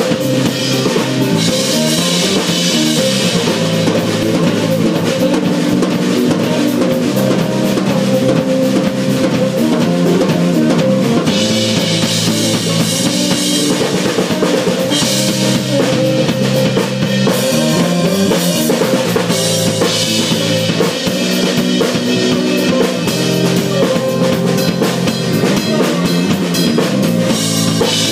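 Live band music with a drum kit keeping the beat under keyboard and guitar. At the start a saxophone is at the player's mouth.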